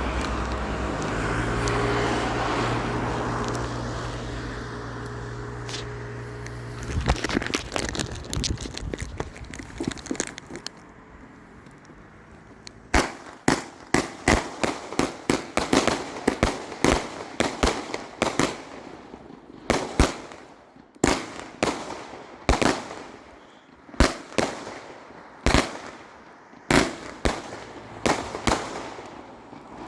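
Fireworks going off: a steady hissing rush for the first several seconds, then crackling, then a long run of sharp bangs, irregular at about one or two a second, until the end.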